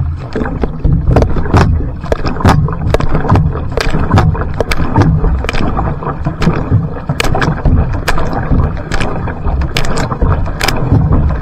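Single-blade paddle strokes of a va'a outrigger canoe's sprint start, each catch a sharp splash, about two a second, over a low rush of water past the hull. Spray hits the microphone near the end.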